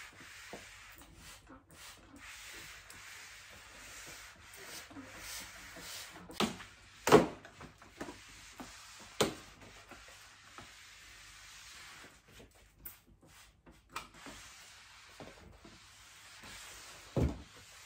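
A spray mop's flat fabric pad rubbing back and forth over a wooden parquet floor, a soft steady swish, broken by a few sharp knocks, the loudest about seven seconds in.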